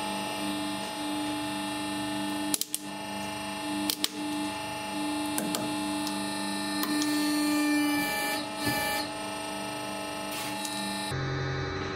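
Hydraulic press motor and pump running with a steady hum while the ram crushes a pink plastic cylinder. Sharp cracks come about two and a half and four seconds in, followed by smaller crackles and creaks as the plastic gives way. Near the end the hum changes abruptly.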